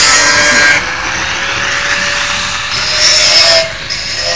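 A power saw running and cutting. It is loud at first, drops back about a second in while the motor keeps running, cuts loudly again for about a second, then eases off and picks up again near the end.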